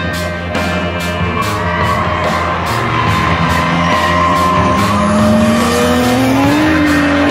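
Race cars running on a track, one engine note climbing steadily in pitch over the second half, mixed with background music that has a steady beat.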